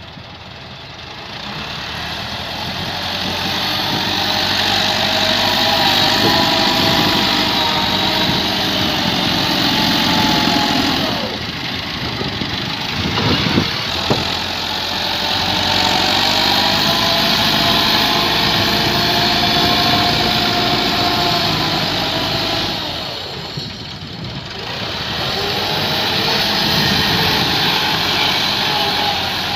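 Massey Ferguson diesel tractor engine running steadily as it pushes soil with a levelling blade, growing louder and then fading as the tractor passes, several times over. A few sharp knocks come about halfway through.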